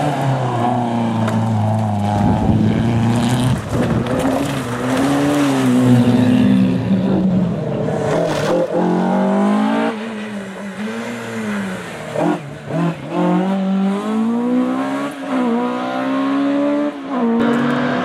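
Historic Ford Escort rally cars driven hard at full throttle. The engine note climbs and drops again and again through gear changes and short lifts off the throttle, with several quick breaks in the sound past the middle.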